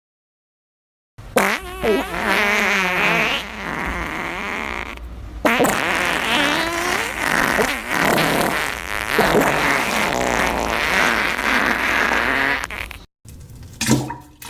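Fart sound effect: long, wavering flatulence noises whose pitch slides up and down, starting about a second in and breaking off briefly a few seconds later before carrying on until near the end.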